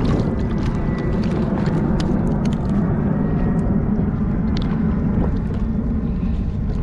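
Wind rumbling on an action camera's microphone over small waves lapping at a kayak, a steady low noise, with scattered light clicks from hands working a hook out of a sea robin.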